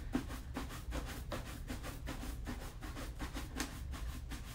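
Wooden-backed bristle shoe brush buffing polish on a smooth leather shoe: quick rubbing strokes at about four a second, the brush lifted on and off the leather so the friction heats the polish to a high shine.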